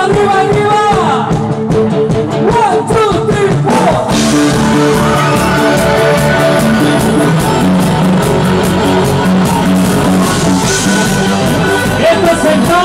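Live rock band playing through the stage sound system: electric guitar and bass with a singer's voice. About four seconds in, drums and cymbals come in with the full band.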